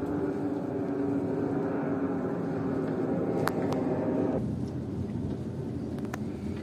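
An engine running with a steady hum; its higher part drops away about four seconds in, leaving a lower rumble, with a couple of faint clicks.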